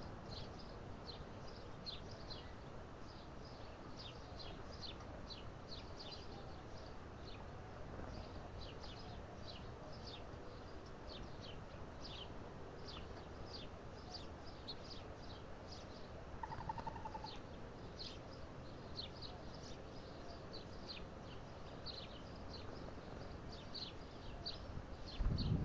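Small birds chirping repeatedly: short, high chips at about two a second, with a brief buzzy note about two-thirds of the way through. A loud low rumble comes in right at the end.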